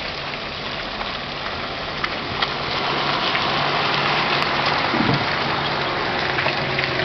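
Vehicle engines running in slow stop-start traffic on a wet, muddy road, under a steady wet hiss that grows a little louder about two and a half seconds in.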